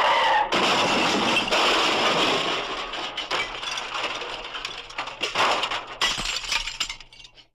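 Car crash sound effect: a tyre skid cut off about half a second in by a smash of breaking glass, followed by scattered glass and debris clinking as it dies away over several seconds.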